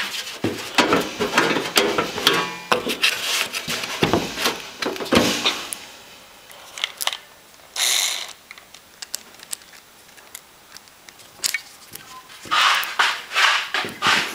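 Screws being driven into a vintage heater's case by hand with a screwdriver: rapid clicking and scraping for the first several seconds, a short rasp about eight seconds in, then more clicking near the end.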